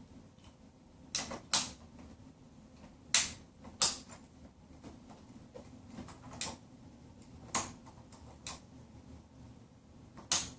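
Toy Astro Switches being pushed into the slots of a DX Astro Switch Rack and clicking into place: a string of about eight sharp clicks and snaps at irregular intervals.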